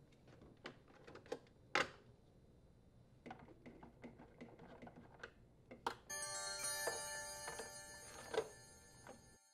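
Light clicks and knocks of a plastic auger motor housing and screws being handled. About six seconds in, a bright electronic chime with many ringing overtones starts suddenly and fades over about three seconds: a sound effect for an on-screen caution icon.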